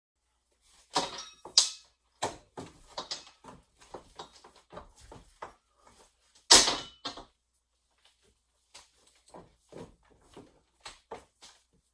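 Irregular knocks and clatters from a ratchet strap being slung over and around a steel gun safe, with the loudest knock about six and a half seconds in, then lighter clicks about two or three a second near the end.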